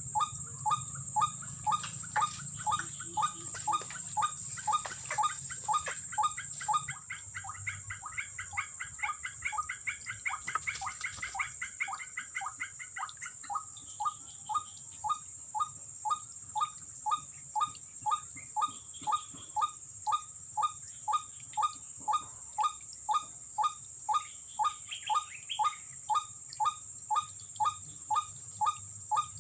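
White-breasted waterhen (ruak-ruak) call, one short note repeated very evenly about twice a second, over a steady high insect drone. Between about 7 and 13 seconds in, another bird adds a quick rising run of higher notes.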